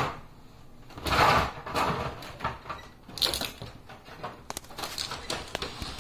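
Plastic and sheet-metal parts of a laser printer being handled during reassembly: uneven rustling and clattering, loudest a little after a second in and again around three seconds, followed by a run of short sharp clicks.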